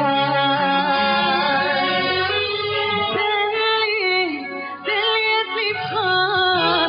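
A Hebrew-language song: a woman sings long, wavering held notes over a steady instrumental backing.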